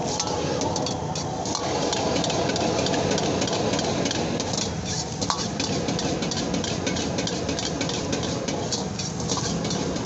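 High-powered gas wok burner running steadily, with a metal ladle clanking and scraping against a steel wok many times a second as fried rice is stir-fried and tossed.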